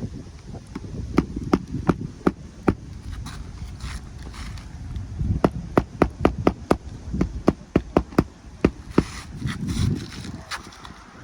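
Hammer strikes on a roofing nail that is hard to drive home: a few spaced blows, then a quicker run of about a dozen sharp taps, about three or four a second.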